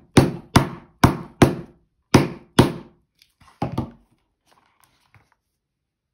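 Hammer striking a hand rivet setting tool, setting a double cap rivet: about seven sharp blows over roughly four seconds, with a short gap after the fourth and a quick double hit near the end, followed by a few faint handling clicks.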